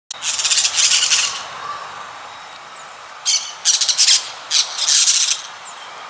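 Birds squawking and chattering in harsh, high-pitched bursts over a steady hiss. One cluster of calls comes in the first second, then a run of calls from about three to five and a half seconds in.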